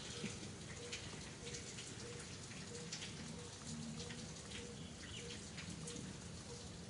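Steady patter of water drops: many small, irregular ticks over a soft hiss.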